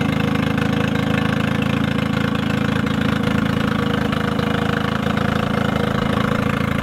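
Honda BF10 four-stroke outboard motor running steadily, warming its oil on a flushing clamp with fresh water through the cooling system.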